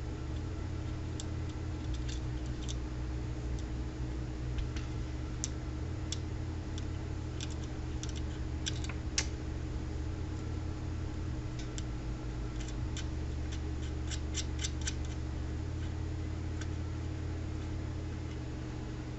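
Scattered small clicks and taps of tools and parts being handled on a workbench, bunched in two runs in the middle, over a steady low electrical hum.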